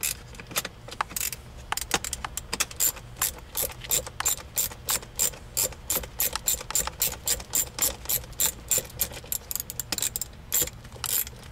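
Small hand ratchet with a 7 mm socket clicking steadily, about four clicks a second, as it backs out a bolt, with a short pause near the end.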